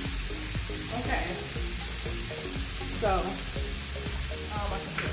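Steak searing in a ridged cast-iron grill pan and green beans frying in a stainless skillet on a gas stove, sizzling steadily.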